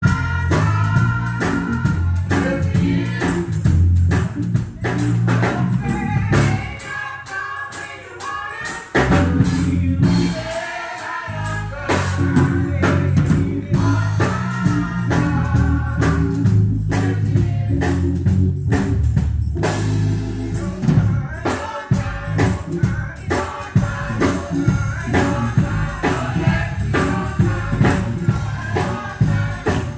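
Gospel music: singing over a band with bass, drums and tambourine, the low end falling away briefly partway through before the full band comes back in.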